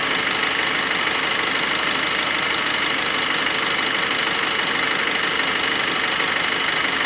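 Car engine idling with the accessory drive belt running over the tensioner pulley, whose bearing makes a steady noise: the sign of a worn, failing tensioner bearing.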